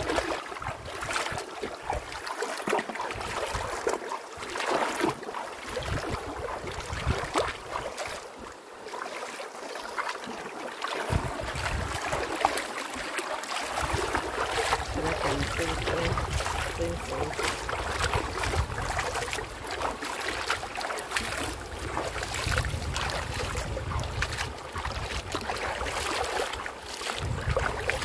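River water rushing steadily, with irregular gusts of wind buffeting the microphone.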